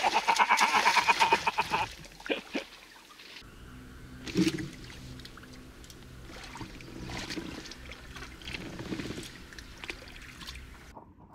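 Hooked herabuna (Japanese crucian carp) thrashing at the surface while being played on the rod, a rapid run of splashing for the first couple of seconds, then quieter, scattered splashes and water sounds.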